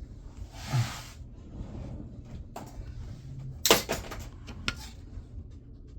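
Small metal parts clicking and knocking as a laptop hard drive is taken apart with a screwdriver. There is a short scrape just under a second in and one sharp, louder knock a little past halfway.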